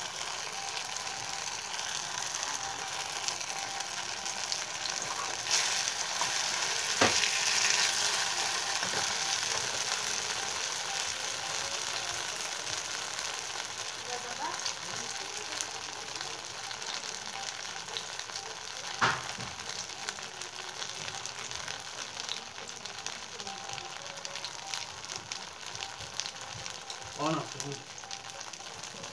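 Oil sizzling steadily around a besan-batter okra roll shallow-frying in a kadai. The sizzle swells louder about five seconds in and then slowly eases off, with two sharp knocks, about seven and nineteen seconds in.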